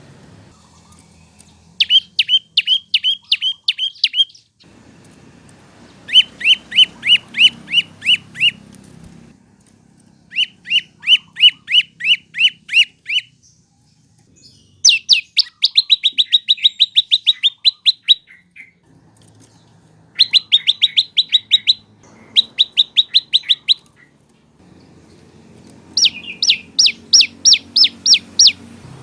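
Prenjak lumut (lancur) singing: seven phrases of rapid, evenly repeated sharp chirps, each note sweeping downward, about four notes a second and quicker in the fourth phrase, with short pauses between phrases.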